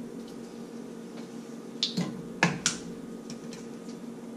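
Sharp clicks and taps from opening and handling the olive oil bottle's cap: four quick clicks about two seconds in, then a couple of fainter ones, over a steady low hum.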